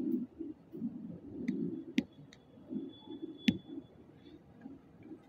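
Stylus tapping on a tablet's glass screen: a few sharp, separate clicks, the loudest about two and three and a half seconds in, over faint low background noise.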